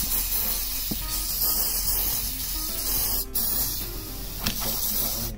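Aerosol lubricant can hissing in one long spray, broken briefly about three seconds in, as lube is sprayed onto a stiff bolt and its threaded hole in the gearbox casing.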